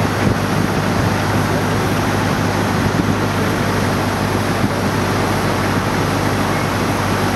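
Steady airport-apron machinery noise: a continuous even roar with a low steady hum, typical of aircraft and ground equipment running at the stand.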